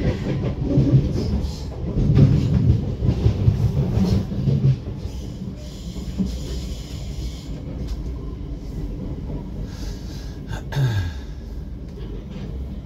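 Class 455 third-rail electric multiple unit running over pointwork: a low rumble with clatter of wheels over joints and crossings, loudest in the first few seconds while another train passes alongside. Near the end there is a sharp click and a short falling tone.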